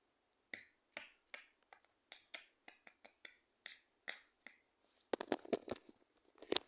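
A series of short, light clicks or taps, about two to three a second, then a faster, louder run of clicks about five seconds in.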